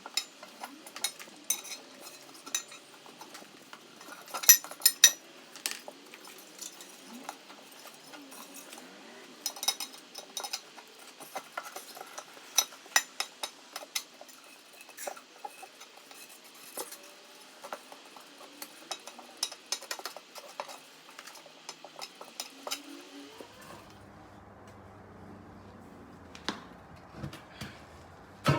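Steel tire spoon clinking and scraping against the wheel rim at irregular intervals as the tire's first bead is levered over the rim a bit at a time.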